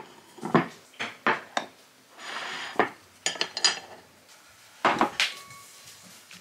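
Tableware being set down on a table: a string of sharp clinks and knocks from a plate, a bowl and chopsticks, with a short scrape about two and a half seconds in. Near the end a glass is put down and rings briefly.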